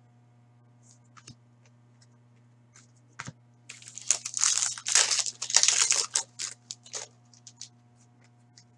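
Foil trading-card pack wrapper crinkling and tearing as it is ripped open by hand, loudest from about four to seven seconds in, after a few light taps of cards being handled. A faint steady low hum runs underneath.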